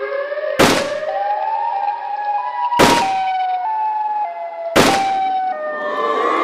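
Edited-in siren wail sound effect whose tone glides and steps in pitch, cut three times by sharp shot-like blasts about two seconds apart.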